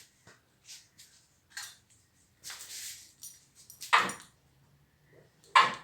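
Irregular clicks, short clatters and knocks of hard parts being handled, with a louder knock about four seconds in and two more near the end.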